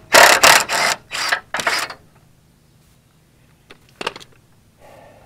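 A Ryobi 1/2-inch cordless impact wrench hammers loudly in three or four short bursts as it backs out the bolts holding the truck's lower front valance. A click and a brief clatter follow about four seconds in.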